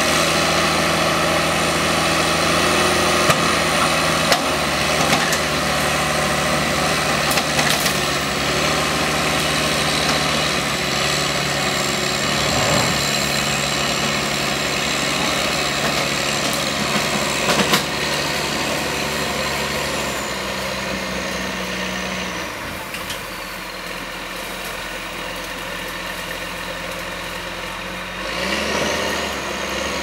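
Backhoe's diesel engine running under load with a high whine as it hauls a pickup truck up a bank on a chain. The revs drop about two-thirds of the way through and climb again near the end.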